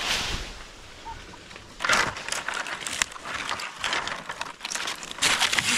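Dry coconut palm fronds and fibrous husk material rustling and crackling as they are handled and pushed aside. The crackling starts about two seconds in and gets louder near the end.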